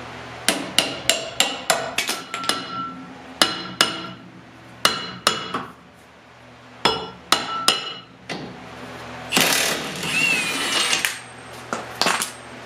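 Hammer blows on a rear brake drum, sharp metal strikes in quick groups, each ringing briefly. About nine seconds in there is a longer scraping stretch, then two more blows near the end.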